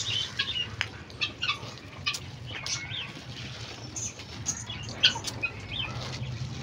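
White pigeons flapping their wings as they come down to grain scattered on a concrete floor, amid scattered light clicks and short high chirps.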